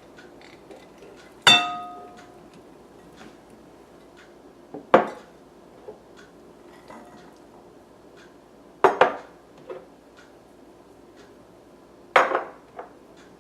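A utensil knocking and clinking against a mixing bowl while ingredients are added and mixed: a few separate sharp knocks spread out, the first ringing briefly like a struck dish.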